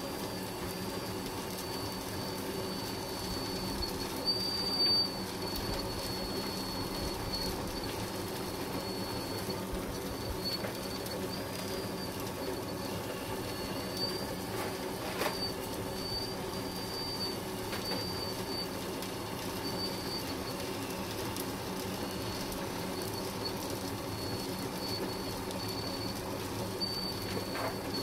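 Lesu PC360 RC hydraulic excavator running: a steady hum with a thin high whine from its hydraulic pump that wavers as it digs and swings, and a few brief knocks, one about fifteen seconds in.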